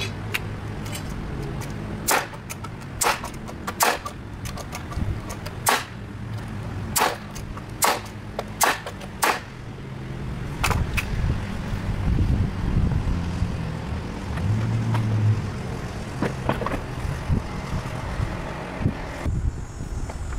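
Sharp knocks of hand work on wooden boards, about a dozen at irregular intervals of roughly a second, most of them in the first half, over a steady low hum.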